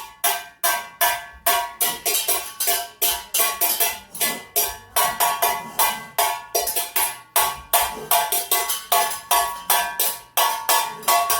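Metal spoons struck together as a rhythm instrument, a steady clacking beat of about three strikes a second, each with a short metallic ring.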